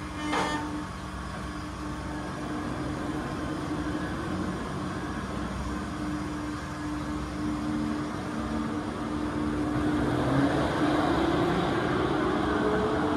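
Drive motor of a spinning dragon-gondola tower ride running with a steady mechanical hum, with a brief clack just after the start. From about ten seconds in the hum rises in pitch and grows louder as the ride speeds up.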